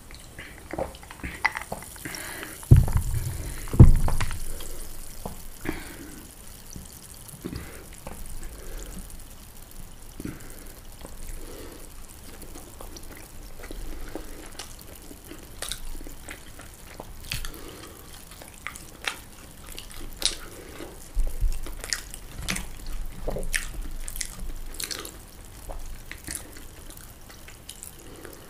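Close-miked ASMR eating sounds: wet chewing with many small sharp mouth clicks and smacks. Two loud low thumps come about three and four seconds in.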